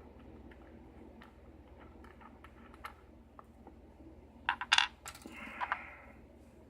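Faint ticks of a lock pick working the pins inside a Schlage-style key-in-knob lock cylinder. About four and a half seconds in there is a burst of loud, sharp metallic clicks, then a ringing metallic rattle that dies away within about a second.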